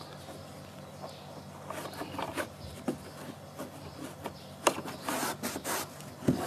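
A rag rubbing and wiping against the plastic hull of a kayak in irregular strokes, with a few harder scrubbing strokes toward the end.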